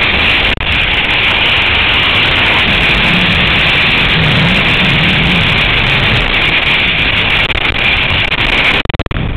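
Loud, steady rush of wind on the camera's microphone during a skydive, with brief dropouts near the end.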